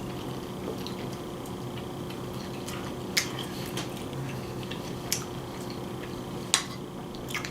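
A person chewing a mouthful of chili dog pizza: a few short wet mouth clicks over a steady background hum.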